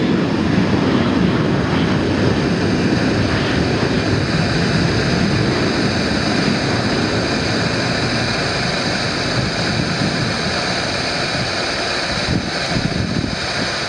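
Boeing 737-800's CFM56-7B turbofan engines at climb thrust just after takeoff: a steady rumble, slowly fading as the airliner climbs away.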